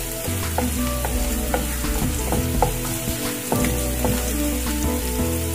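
Minced garlic sizzling in oil in a frying pan while a wooden spatula stirs and scrapes it, with sharp ticks a few times a second.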